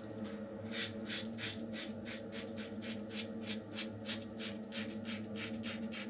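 RazoRock German 37 slant safety razor scraping through lathered stubble under the chin in quick, short strokes, about four a second, starting just under a second in. A faint steady low hum runs underneath.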